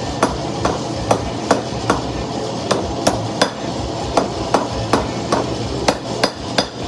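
Hand hammer forging a red-hot steel knife blank on a post anvil: even, steady blows at about two and a half a second, each with a short metallic ring, over a steady rushing noise.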